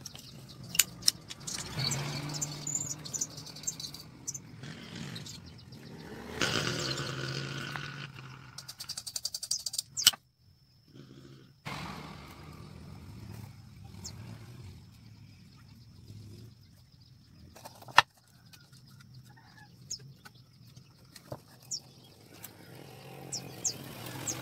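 Wooden boards knocking and clicking against a tabletop as they are handled and fitted together into a small box, with a few sharp knocks, about 10 and 18 seconds in, standing out. Behind them, birds chirp and an engine hums steadily for several seconds.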